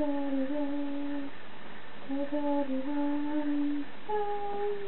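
A woman humming a slow lullaby with her mouth closed, in long held notes, with a short pause a little after a second in and a higher note near the end.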